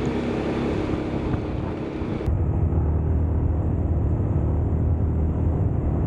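Suzuki Burgman 400 maxi-scooter on the move: wind and road rush over its engine note, changing abruptly about two seconds in to a steadier low engine drone with much less wind hiss.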